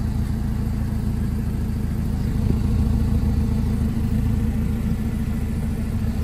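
Hyundai Solaris 1.6-litre four-cylinder petrol engine idling, heard close to the exhaust tailpipe: a steady low running sound, slightly louder in the middle.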